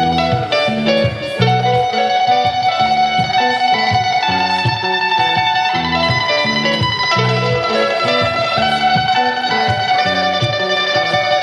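Live band playing an instrumental passage, led by electric guitar, with low notes pulsing about twice a second underneath.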